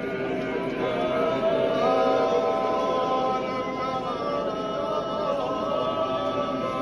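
Church congregation singing a hymn together, many voices on long held notes.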